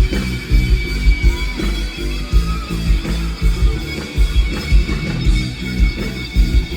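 Live rock band playing an instrumental passage at loud concert volume, with a steady drum beat.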